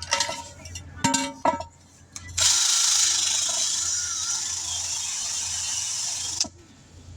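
A few clicks and rattles of handling, then a pressurised spray hissing steadily for about four seconds before cutting off sharply.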